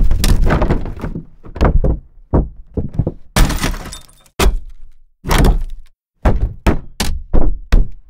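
A string of separate heavy impacts on an SUV's body, about fifteen in all: dull metal thunks and crunches with breaking glass. Each hit dies away quickly, and there are short silences between some of them.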